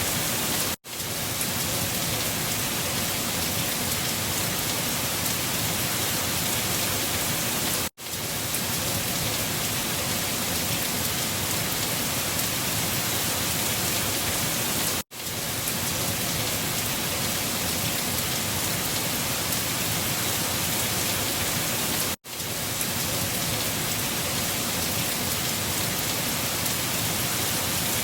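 Steady, even rushing hiss of a wind-storm ambience recording. It breaks off for a split second four times, about every seven seconds, as if a short loop were restarting.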